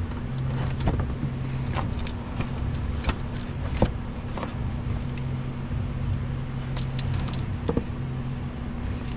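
Light clicks and taps of metal as the HEMI's loosened mechanical fan and fan clutch are turned by hand to unthread them from the water pump shaft, over a steady low hum.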